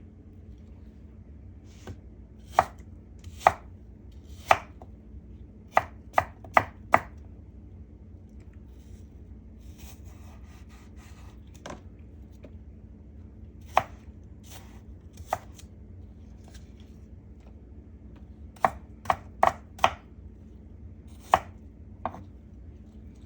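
Knife chopping food into chunks on a cutting board: sharp, irregular knocks in short runs of a few strokes, with pauses between them.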